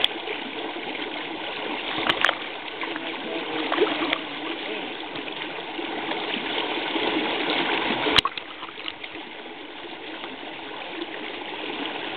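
Spring-fed river water rushing and splashing over a shallow riffle: a steady rush, with a few sharp clicks about two seconds in and a louder one about eight seconds in, after which the rush is a little quieter.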